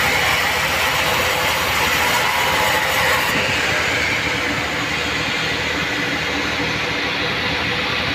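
Vertical band sawmill running steadily, its blade sawing a mahogany log into planks. The highest hiss drops away about three seconds in while the machine keeps running.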